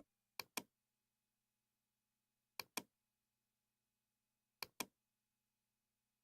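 Computer mouse clicks in quick pairs, three pairs about two seconds apart, with near silence between them.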